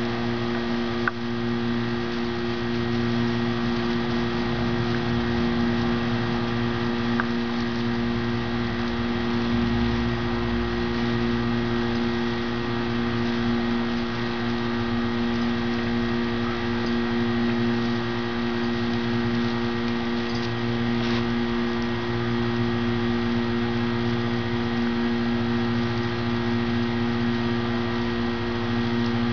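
A steady machine hum made of several constant low tones, unchanging in pitch and level.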